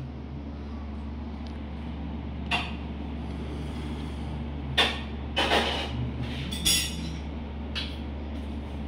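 A steady low machine hum runs throughout. Over it come a few short knocks and clinks of handling on a steel plate: one early, a cluster about five to seven seconds in, the loudest near the start of that cluster, and a faint one near the end.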